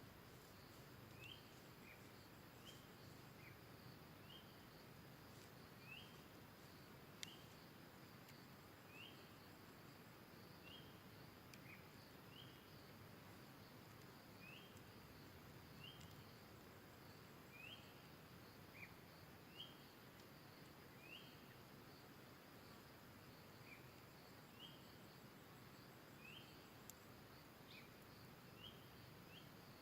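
Faint forest ambience: a bird repeats a short rising chirp about once every second or so over a steady, high insect drone. A single sharp click comes about seven seconds in.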